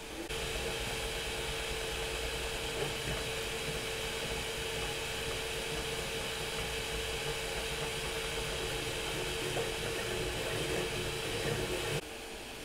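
Flsun Super Racer delta 3D printer running a fast print: its cooling fans whir steadily over the motors' hum, with a steady mid-pitched tone. Near the end the sound drops suddenly to a fainter hiss.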